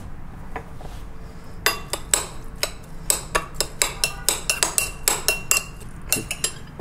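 Metal spoon clinking against a white ceramic bowl while stirring a chopped lobster mixture, a quick run of sharp knocks with a short ring, about four a second, starting about a second and a half in.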